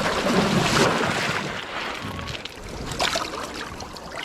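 Wind rushing on the microphone, with a few short knocks about three seconds in.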